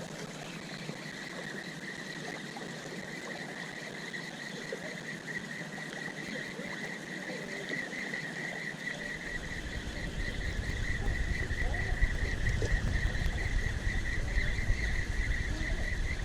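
Steady high-pitched insect drone in the open air, with a low rumble joining about ten seconds in.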